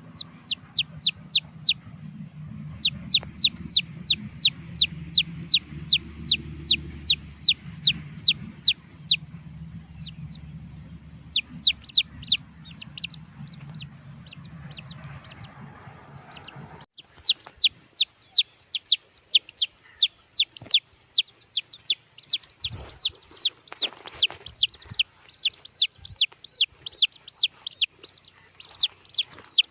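Red junglefowl chicks peeping: rapid runs of high, downward-sliding cheeps, about four or five a second, in bursts with short pauses. After an abrupt cut about 17 s in, the cheeps come denser and louder.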